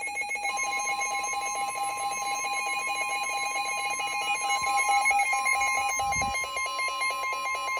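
NOAA Weather Radio warning alarm tone, a steady single tone near 1050 Hz, sounding together with a rapidly pulsing electronic alert that fades back about six seconds in; it signals a newly issued severe thunderstorm warning.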